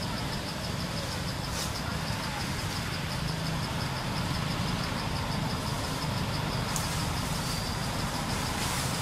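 Steady outdoor background noise: a low hum with a fast, even, high-pitched pulsing over it, and a couple of brief hissing sounds.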